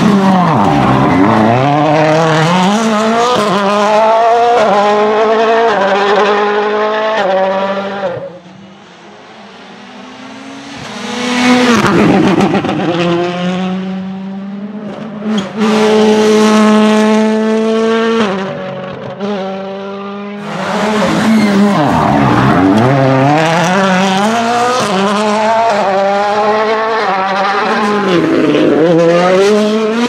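World Rally Cars' 1.6-litre turbocharged four-cylinder engines at full throttle, revving up through quick gear changes as one car after another races past, their pitch dropping as each goes by. There is a quieter lull about eight seconds in before the next car arrives.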